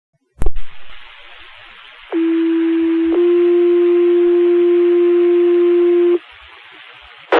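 Two-tone sequential fire pager alert over a radio channel: a steady tone for about a second, then a slightly higher, louder tone held for about three seconds. Radio static hiss fills the gaps, with a transmitter click as the radio keys up near the start and another near the end.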